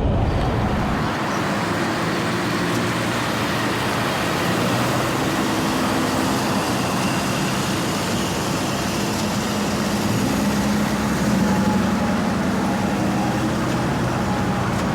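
Steady city street traffic: the running engines and tyre noise of passing road vehicles, with a low engine hum that grows stronger a little after the middle.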